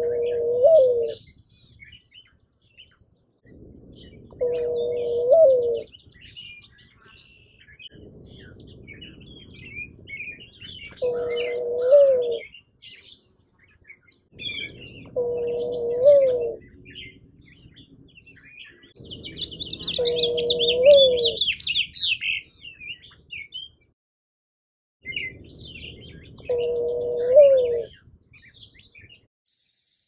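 Male mourning dove giving its nest coo, a short three-part 'coo-OO-oo' with the middle note highest, repeated six times about four to six seconds apart. Paired males give this call while nest building or when drawing the female to the nest site. Small songbirds chirp faintly in the background.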